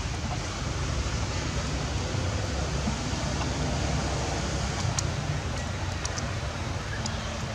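Steady outdoor rushing noise with a low rumble, with a few faint short clicks in the second half.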